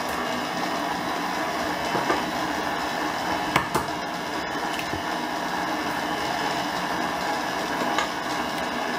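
Electric stand mixer running steadily, its beater working butter, sugar and eggs round a steel bowl into a batter. A few sharp clicks stand out over the motor.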